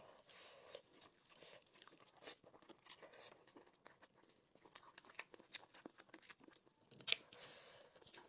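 Close-miked mukbang eating sounds: chewing and biting into chicken, with many small crunching clicks and crackles. The sharpest snap comes about seven seconds in.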